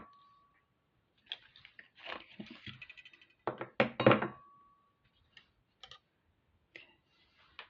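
Jewelry wire and small metal hand tools being handled on a work surface: scattered small clicks and rattles, and about four seconds in a louder clink that leaves a short metallic ring.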